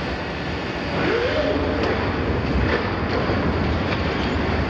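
Liebherr 974 demolition excavator working under hydraulic load as its attachment tears into the steel wall of an oil tank. The noise picks up about a second in, with a wavering metal screech and a few sharp clanks of steel.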